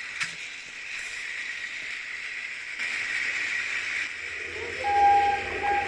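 Battery-powered Centy toy train running on its track, a steady whirring hiss. About five seconds in, a brief steady tone sounds over it.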